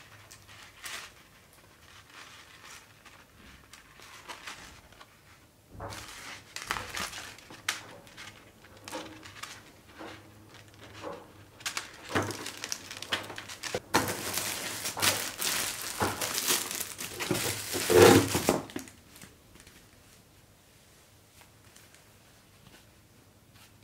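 Packaging rustled and handled by hand: scattered light rustles and small clicks at first, then a loud stretch of crinkling and crumpling from about halfway in that lasts several seconds and peaks just before it stops.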